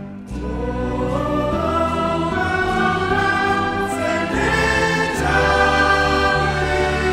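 Background choral music: voices singing sustained lines over held low notes.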